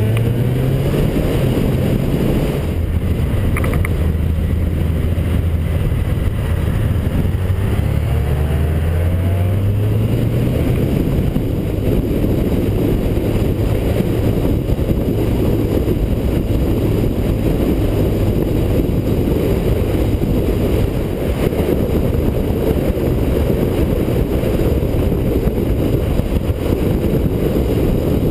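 Motorcycle engine running at road speed, its pitch rising several times as it accelerates in the first ten seconds or so. After that a steady rush of wind on the microphone covers most of the engine.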